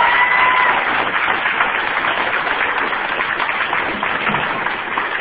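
Audience applauding and cheering at the end of a song, a dense patter of many hands, with a held high-pitched call ending about a second in and the applause slowly dying down. Recorded on a phone, so it sounds thin and dull at the top.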